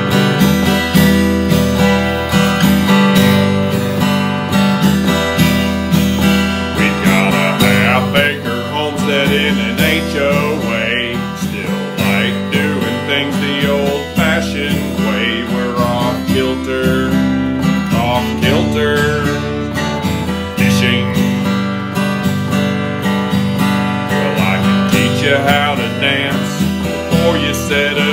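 Acoustic guitar music, strummed, with a higher wavering melody line coming in about eight seconds in.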